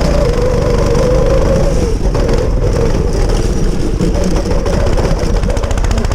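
Small go-kart engine running steadily, its note dipping about two seconds in and then running more unevenly.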